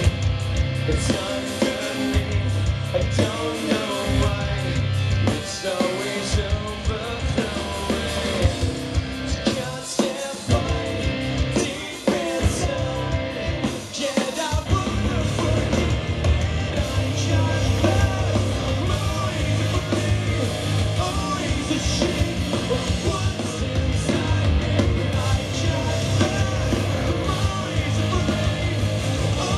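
Live rock band playing: electric guitars, bass and drums with a male lead singer, the low end thinning briefly near the middle before the full band comes back in.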